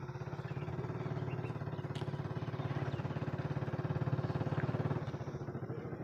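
An engine running steadily, with a fast, even pulsing beat.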